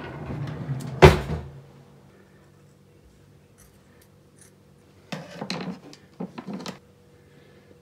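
Handling noise with a sharp knock about a second in, then a quick run of scissor snips as a rubber canning-jar seal is cut near the end.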